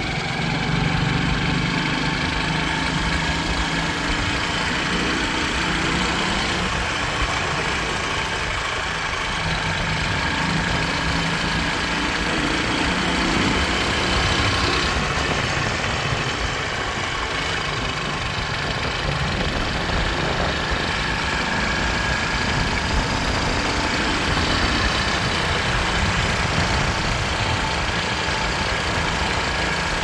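Motorcycle engine running steadily as the bike rides along a road.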